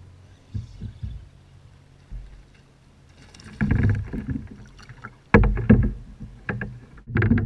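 Knocks, thumps and scuffling against a kayak as a freshly caught largemouth bass is landed and handled. The sounds are sparse at first and become a burst of sharp knocks in the second half.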